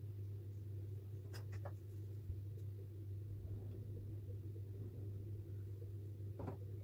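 Steady low hum, with a few faint light taps and clicks of a small plastic alcohol-ink bottle against the painting surface as ink is dropped, twice about a second and a half in and once near the end.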